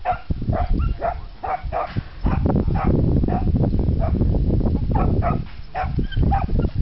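Dog barking repeatedly in short, quick barks, about two or three a second, with a brief pause midway. A steady low rumble runs underneath.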